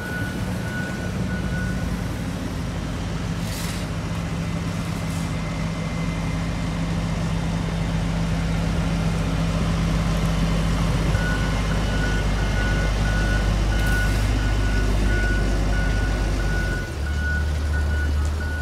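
Diesel engines of road rollers running steadily, with a reversing alarm beeping in a steady on-off pattern at the start and again from partway through. Near the end the engine note drops lower.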